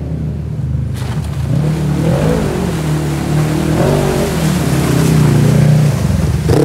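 Side-by-side UTV's engine revving up and down as it ploughs through a deep muddy water hole, with water and mud splashing. It is loudest about five to six seconds in as it passes close.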